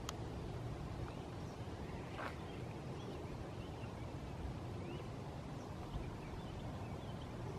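Outdoor ambience: faint scattered bird chirps over a steady low rumble, with a short noise about two seconds in.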